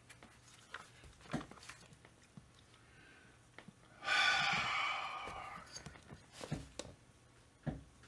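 Handling noise from a chainsaw's plastic engine housing being picked up, turned over and set back down on a workbench: a few short knocks, and a louder rushing noise about four seconds in that fades over nearly two seconds.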